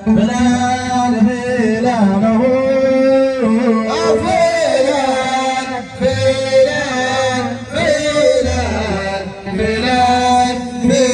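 A group of men singing a Dhofari folk song, a slow melody of long held notes that rise and fall.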